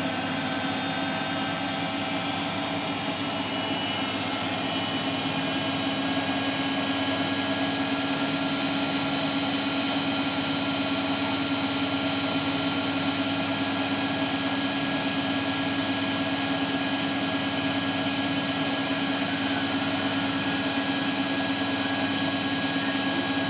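Beko Eco Care WMA 1510 W washing machine spinning at a steady high speed on its final spin. It makes a constant hum with several steady higher tones above it, with no change in speed.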